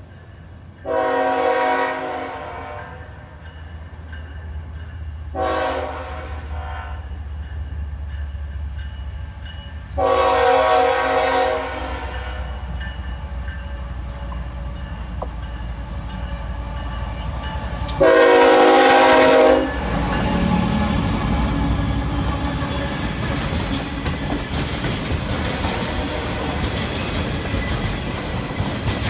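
Approaching freight train's diesel locomotive horn sounding four blasts, each a steady chord lasting about one and a half to two seconds; the last is the loudest. The locomotive's engine drone rises underneath, and from about two-thirds of the way in the train passes close by, with a steady rumble and clickety-clack of freight-car wheels over rail joints.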